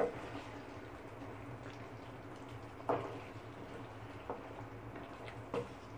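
A spoon stirring tomato paste into chicken curry simmering in a pan: a steady, low bubbling hiss with a few knocks and scrapes of the spoon against the pan, the loudest right at the start and about three seconds in.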